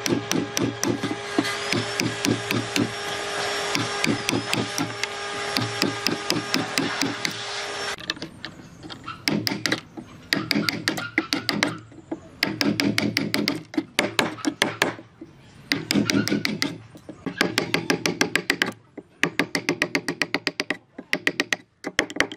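Woodworking tool noise. For about eight seconds a power tool's motor runs with a steady hum and a fast, even clatter. Then the motor cuts off and bursts of rapid tapping on wood follow, with short pauses between them.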